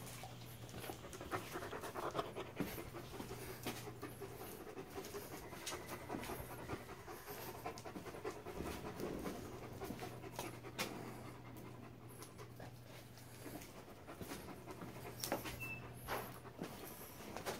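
Large white dog panting steadily close by.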